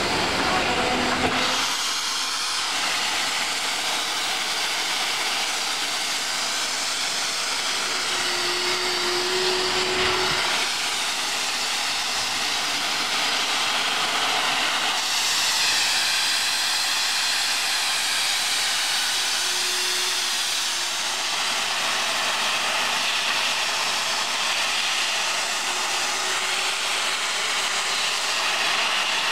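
Steady, loud hiss of steam escaping from the Indian Railways WP-class steam locomotive No. 7161 'Akbar', blowing out low along its side by the wheels. There is a deeper rumble in the first second or so, and a faint low hum comes and goes.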